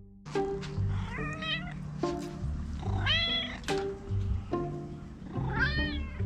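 Maine Coon cat meowing three times, each call rising and then falling in pitch, over light plucked background music.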